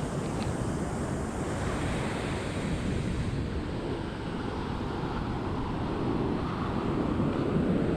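Ocean surf washing on a beach, with wind buffeting the microphone in a low rumble that grows a little stronger near the end.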